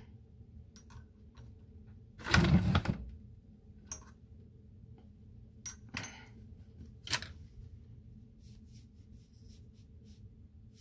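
Painting supplies being handled at arm's length: a brief clattering rustle about two seconds in, then a few sharp clicks of small objects being picked up and set down.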